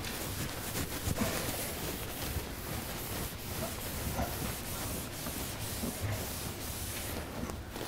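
A steady rubbing, scrubbing noise with a few faint knocks.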